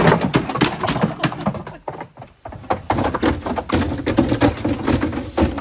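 A run of clattering knocks and thuds, several a second, with a brief lull about two seconds in.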